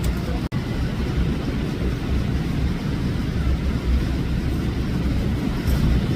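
Steady low rumbling background noise, cut off for an instant about half a second in.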